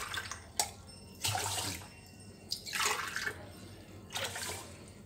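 Water poured from a jug into a stainless steel pot of washed rice and moong dal, in a few short splashing pours about a second apart.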